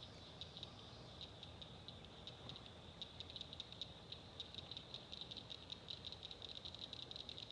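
Faint evening chorus of insects chirping in rapid, high-pitched pulses, growing denser and a little louder near the end.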